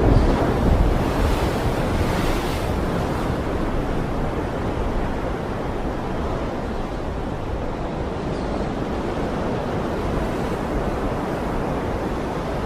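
Stormy sea: waves and surf with wind, a steady rush of noise, a little louder in the first few seconds.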